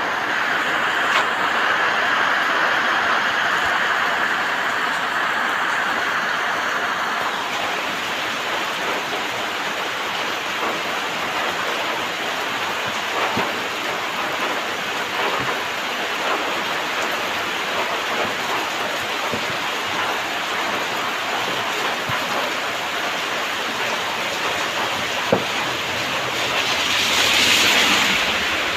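Steady rain falling, an even hiss throughout, swelling briefly near the end.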